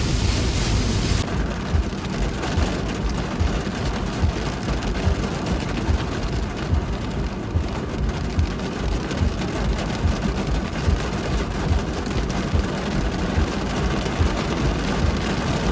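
Heavy rain hitting a car's roof and windshield, heard from inside the car: a dense, steady hiss with many irregular low thumps.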